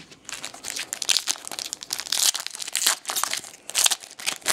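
Foil wrapper of a 2012 Bowman Chrome baseball card pack being torn open and crinkled by hand: a run of irregular crackles.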